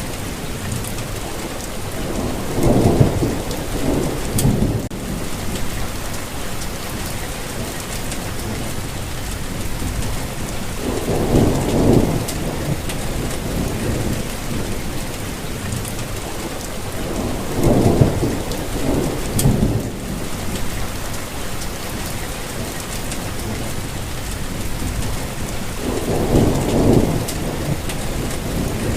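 Steady rainfall, with low rumbles of thunder swelling and fading four times, roughly every eight seconds.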